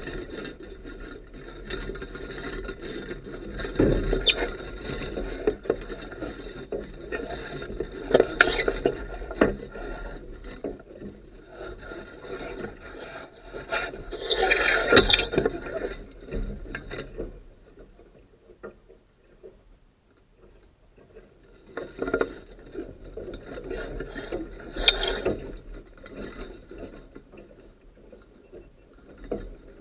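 Wind and water noise while sailing a Sunfish dinghy, rising and falling in gusts, with a steady high whine that drops away past the middle and comes back near the end.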